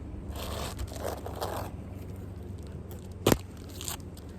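Asphalt roof shingle scraping against the neighbouring shingles as it is worked by hand, then a single sharp knock about three seconds in.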